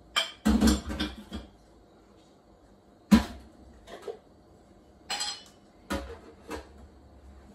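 Glass jars clinking and knocking against a stainless steel kitchen sink as they are handled for washing: a clatter in the first second and a half, one sharp knock about three seconds in, and a few lighter knocks near the end.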